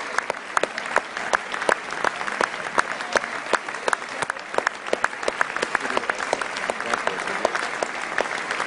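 A large theatre audience applauding steadily in a long ovation, a dense clatter of many hands with individual claps close by standing out.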